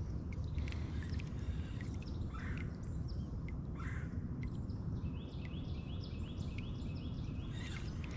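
Riverside outdoor ambience: a steady low rumble with birds calling over it, scattered short chirps and then a quick run of repeated chirps from about five seconds in.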